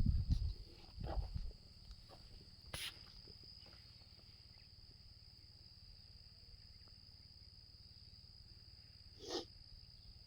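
Steady high-pitched insect drone, typical of crickets. Some low thumps and bumps in the first second or so are the loudest sounds, then a sharp click about three seconds in and a short brief sound near the end.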